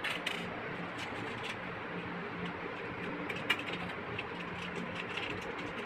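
Scattered light clicks and clinks of small metal Mechanix construction-set parts, nuts, bolts and strips, being handled and fitted together, over a faint steady hum.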